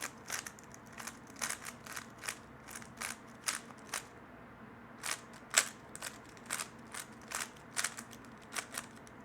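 3x3 Rubik's Cube being turned fast, its plastic layers clicking in a quick uneven run of turns, with a pause of about a second partway through.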